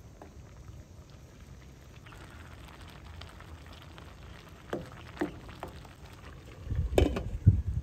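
Rice in an aluminium pot steaming with a soft steady hiss while a wooden spoon stirs it, with several knocks against the pot in the second half, the loudest two near the end.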